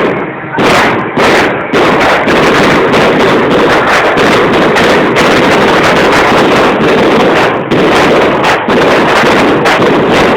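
A long string of firecrackers going off as a dense, continuous rattle of sharp bangs, after a few separate loud bangs in the first two seconds.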